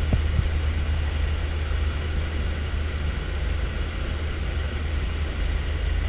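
Aircraft engine and propeller noise heard from inside the cabin: a steady low drone under a constant rushing hiss.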